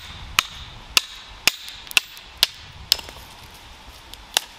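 Hatchet striking and splitting firewood into kindling: a quick run of sharp, cracking chops about two a second, then a pause and one last strike near the end.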